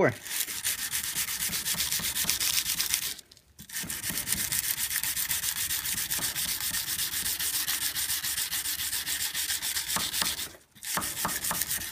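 Oiled 120-grit sandpaper rubbed by hand in rapid back-and-forth strokes along a steel knife blade, making a steady scratchy hiss that pauses briefly about three seconds in and again near the end. This is the second grit stage, refining the scratches left by the 80 grit.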